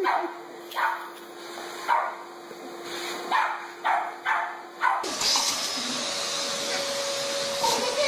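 A dog barking at a vacuum cleaner in sharp single barks, about one a second, over a faint steady hum. About five seconds in, this cuts to a vacuum cleaner running with a steady whine and hiss.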